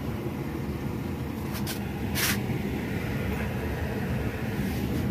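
Low steady rumble of a gas burner firing inside a metal mandi oven. A couple of light clicks come about one and a half seconds in, and a short hiss about two seconds in.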